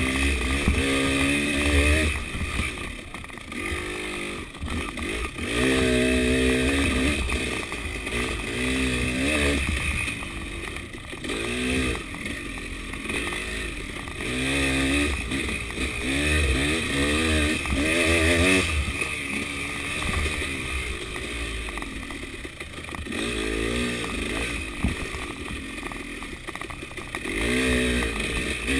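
KTM 300 two-stroke enduro motorcycle riding trail, the engine revving up and falling back over and over as the throttle is worked, about a dozen rising pitch sweeps in all.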